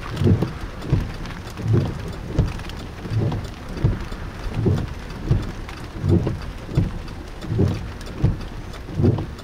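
Heavy rain drumming on a car, with the windshield wipers going: a regular low thump about every three quarters of a second over a constant spatter of drops.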